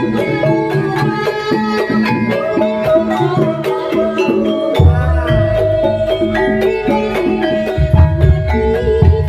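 Banyumasan gamelan playing for a kuda kepang dance: metal mallet instruments struck in a busy, ringing pattern. Deep low strokes come in about five seconds in and again near the end.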